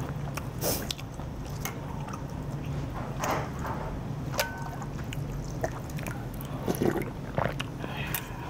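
A metal spoon scooping and stirring broth in a large porcelain bowl: dripping and splashing liquid with scattered light clinks, over a steady low hum.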